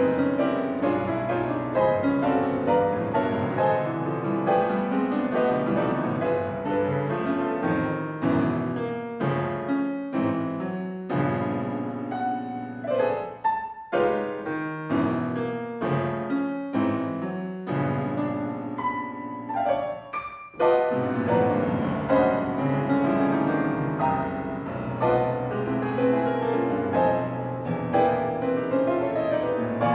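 Solo grand piano playing a dense classical passage of fast notes and full chords, with short breaks about 13 and 20 seconds in.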